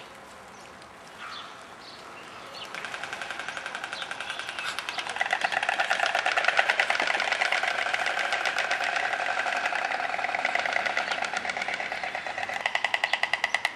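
White stork bill-clattering: a long, very rapid rattle of the mandibles snapping together, starting about three seconds in and growing louder a couple of seconds later, with another loud stretch near the end. The clattering comes during a fight, while one stork is being gripped by another.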